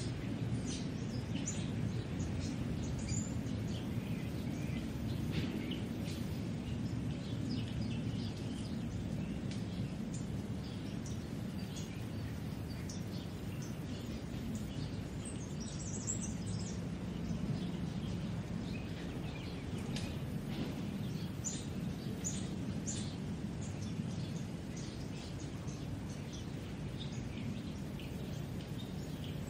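Outdoor park ambience: a steady low background hum with small birds chirping on and off throughout.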